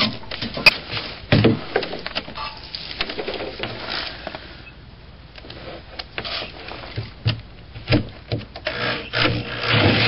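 A corded drill cutting a hole through a wooden board stops at the start. Then come scattered knocks, taps and scrapes as the drill and wood are handled, and the drill starts running again near the end.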